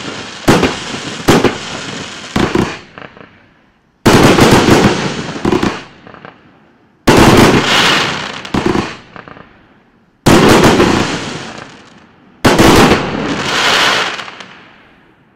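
128-shot, 30 mm calibre Klasek Pyrotechnology 2020 fireworks cake firing. A few sharp shot reports come first, then four loud volleys about three seconds apart, each followed by a fading tail of crackling, bursting stars.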